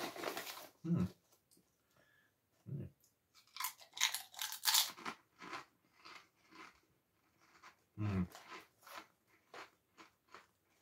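Smith's Double Crunch potato chips being chewed: loud crunching at the start, a second loud bout about four seconds in, and softer chewing crunches in between and after.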